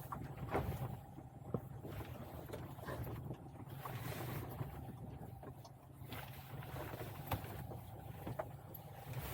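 A vehicle engine running with a steady low drone, with scattered sharp clicks and knocks over it.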